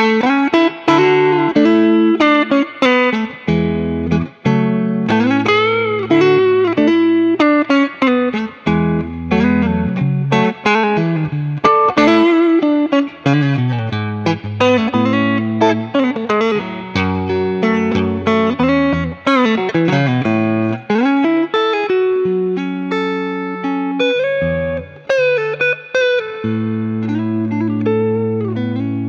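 An original 1960s Fender Telecaster electric guitar played through software amp and effects. It plays a run of picked single notes and double-stops with many string bends, then ends on a held chord that rings out near the end.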